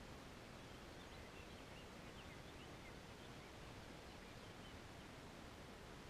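Near-silent outdoor ambience: a faint steady hiss, with a short run of faint, high bird chirps from about a second in until about five seconds in.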